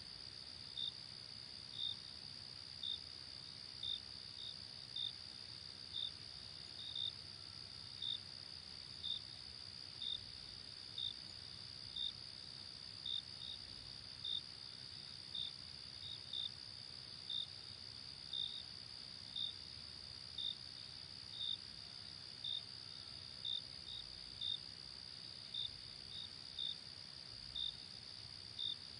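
Crickets chirping: a steady, high-pitched trill from many crickets, with one louder cricket chirping about once a second, now and then twice in quick succession.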